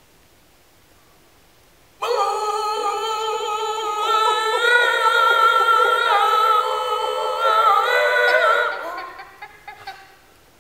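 Improvised sound-poetry vocalising: after two quiet seconds, a man's voice starts suddenly into a loud, high, held cry sounding several tones at once and wavering slightly, which breaks up and dies away about eight to ten seconds in.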